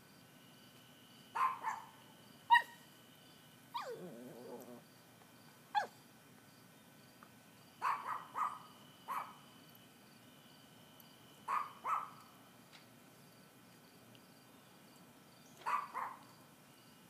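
A dog giving short high yips, singly or in quick pairs and threes, every few seconds, with one longer, lower call about four seconds in.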